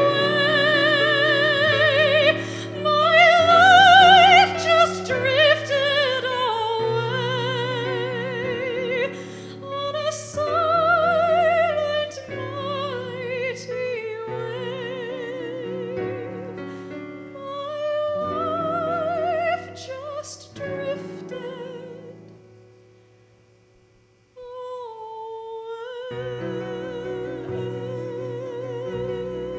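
A woman sings a slow ballad with strong vibrato and long held notes over a small live band. The music fades almost to silence a little past twenty seconds in, then resumes with a new held note and the band.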